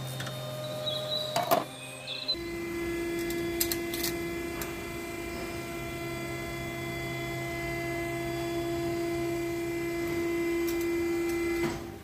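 A few clicks and knocks, then a small electric motor starts about two seconds in and runs at a steady pitch with an even whine for about nine seconds before stopping abruptly near the end.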